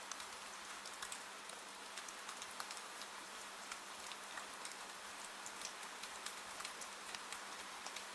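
Steady rain with scattered drops ticking sharply and irregularly against a window pane.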